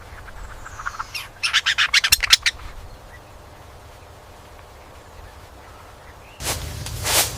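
A bird calling in a quick run of short, sharp calls, about eight a second, starting after a second and lasting about a second. Near the end a low rumble starts, with a few more sharp sounds.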